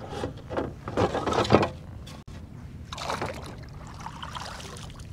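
Knocks and rustling of gear being handled in a kayak, then water splashing and trickling as a plastic fish-measuring board is dipped over the side.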